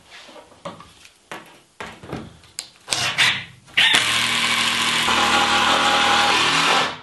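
Cordless driver running for about three seconds, driving a screw into a wooden board. A few light knocks and clicks of handling the wood and tool come before it.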